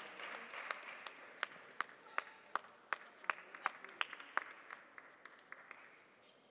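Celluloid table tennis ball bouncing repeatedly, sharp pinging clicks about three a second for roughly four seconds, over light applause that dies away.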